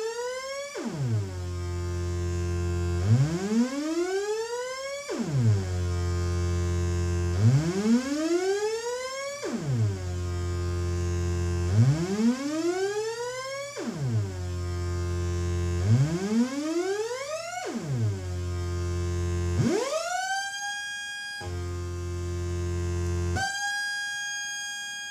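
Future Sound Systems Brunswick DIY synthesizer: a buzzy oscillator tone swept upward in pitch by its LFO, about one swoop every two seconds, each falling back sharply to a low buzz. Near the end the tone twice rises and levels off into a held high note that cuts off.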